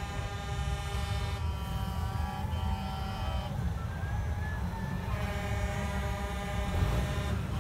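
Semi trucks rolling slowly past, diesel engines rumbling, with air horns blowing long steady chords that break off about three and a half seconds in and start again a couple of seconds later.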